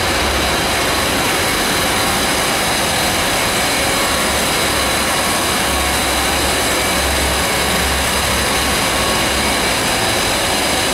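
Loud, steady machinery noise of a gas-fired steam heating plant with its boilers and burners running, an even rush with no rhythm or change.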